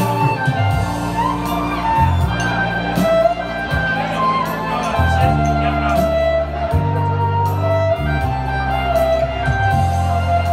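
Live violin playing a slow pop-ballad melody over keyboard accompaniment, with long, deep bass notes that change every second or two.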